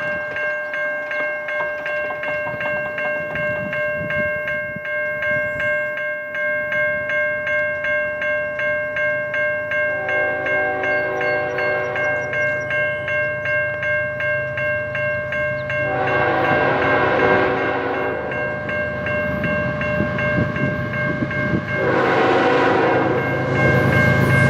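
The lead locomotive, a GE ES44AC, sounds its horn as the train approaches at track speed: one long blast about ten seconds in, lasting roughly eight seconds, and another about twenty-two seconds in. Throughout, a bell-like ringing pulses about twice a second, and the diesel engines' rumble grows loud near the end as the locomotives reach the camera.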